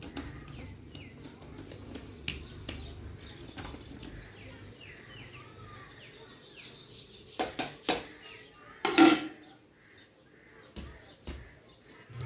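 Small birds chirping repeatedly in the background over a low hum. A few sharp knocks come about seven and a half and eight seconds in, and a louder ringing clank comes about nine seconds in.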